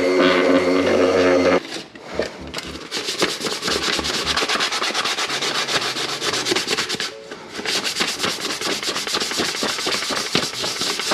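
An electric orbital sander runs with a steady hum and stops about a second and a half in. After that, a sanding pad is rubbed back and forth by hand over painted motorcycle bodywork in quick scratchy strokes, scuffing the old paint before repainting.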